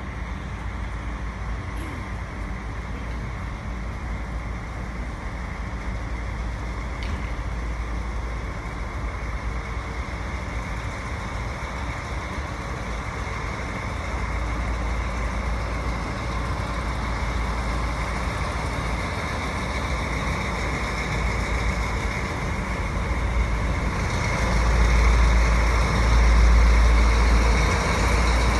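Diesel locomotive engine running as the train draws closer, its rumble growing louder over the last few seconds.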